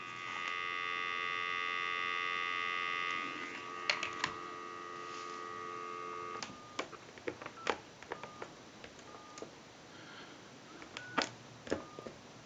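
Telephone dial tone on a Western Electric glow phone. It is steady for about six seconds, louder for the first three. Then come short touch-tone (DTMF) beeps, each with a key click, as numbers are dialed on the phone's lit keypad.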